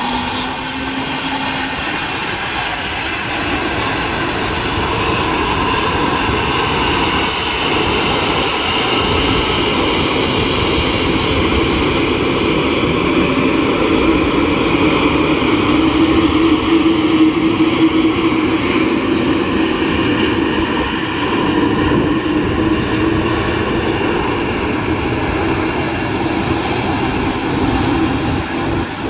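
Airbus A220 airliner taxiing on its geared turbofan engines at low thrust: a steady jet whine over a hum. It grows louder as the aircraft passes closest about halfway through, then eases a little as it moves away.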